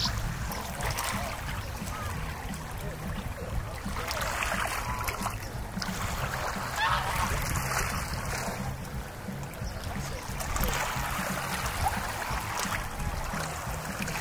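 Water splashing and rushing against a boat, over a steady low hum, with faint voices now and then.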